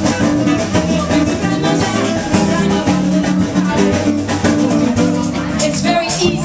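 Live band playing dance music with bass guitar and a steady drum beat.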